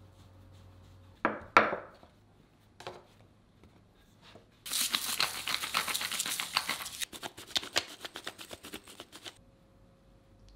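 A hand-turned pepper grinder grinding over raw shrimp: a dense crackle, then separate rapid clicks as the turns slow, stopping about a second before the end. Before it, a short loud rub about a second and a half in.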